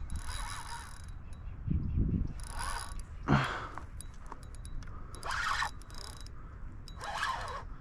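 Fishing reel being cranked in short spells while a hooked fish, taken for a redfish, is fought on the line.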